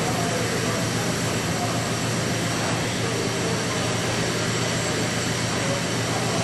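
Liberty ship's triple-expansion reciprocating steam engine running steadily under way, a constant engine-room machinery din with a low hum beneath it.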